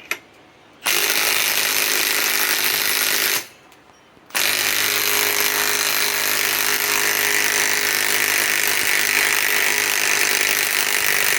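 Milwaukee M18 Fuel Gen 2 mid-torque cordless impact wrench hammering in reverse on a 6-inch lag screw: one run of about two and a half seconds, a pause of about a second, then a long steady run. The lag does not back out.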